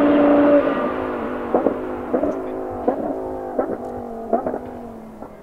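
Lamborghini Huracán Super Trofeo EVO's 5.2-litre naturally aspirated V10 held at steady high revs, then lifting off about half a second in. It then gives five short throttle blips, about one every 0.7 s, while the engine note sinks and fades away.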